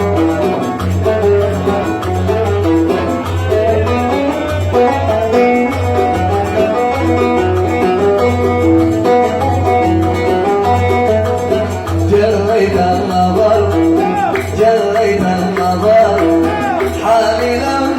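Oud playing a fast plucked melody of rapid repeated notes in a Yemeni Sanaani song, an instrumental passage between sung verses.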